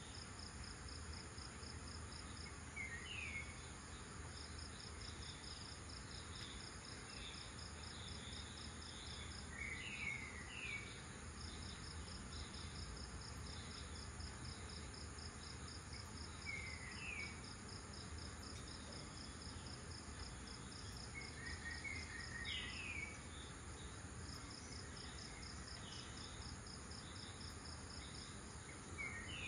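Insects trilling steadily at dawn: a fast, even, pulsing high trill with a thinner steady buzz above it. A bird gives short upward-sweeping chirps, singly or in quick pairs, every several seconds, over a faint low background hum.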